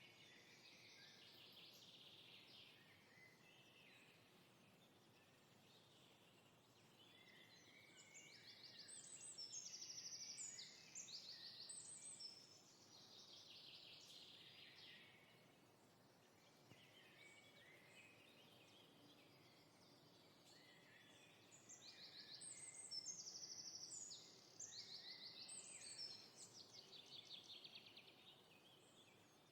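Songbirds singing softly over a faint steady hiss of outdoor ambience, in quick trilled and sweeping phrases that come in two busier spells, one about eight seconds in and one about twenty-one seconds in.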